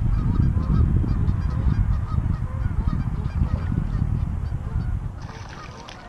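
Geese honking repeatedly over a loud low rumble that fades toward the end, with a brief hiss about five seconds in.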